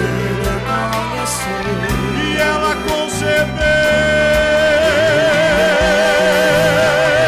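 Live gospel song: male voices singing over a band with a steady bass line. About halfway through, the lead singer holds one long high note with a wide vibrato.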